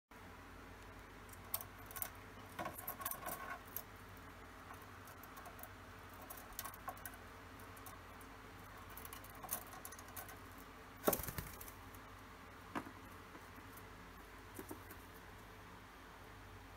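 Scattered light clicks, taps and scratches of a cockatiel moving about on a shelf, its feet and beak on hard surfaces, with the loudest cluster a little past the middle.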